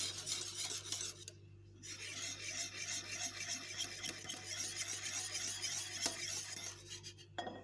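Whisk beating yogurt in a bowl: rapid, scratchy strokes scraping the bowl, pausing briefly about a second and a half in and stopping near the end. The yogurt is being whisked smooth and lump-free.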